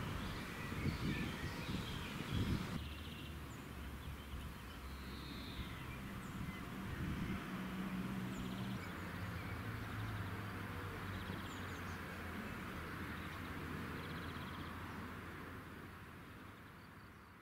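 Outdoor ambience: birds chirping and calling over a steady low engine hum, fading out near the end.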